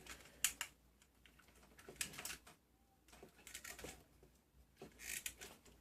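Faint clicks and light rattling of small wire connectors being handled and pushed together as an RC car's motor is plugged into its ESC, coming in four short clusters.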